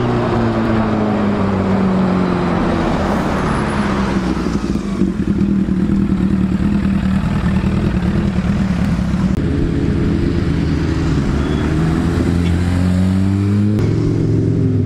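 Superbike engines running close by: the pitch sinks over the first few seconds, holds steady, then climbs again near the end as they are revved.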